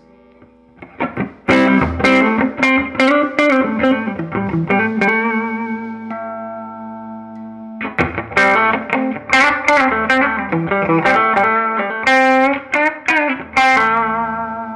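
Electric guitar, a Gibson Les Paul Classic, played through an amp with the Pure Bypass switch engaged, which sends the pickups straight to the output jack past the tone controls. It plays two phrases of picked notes and chords, with a chord left ringing between them around the middle, and the tone is bright and twangy.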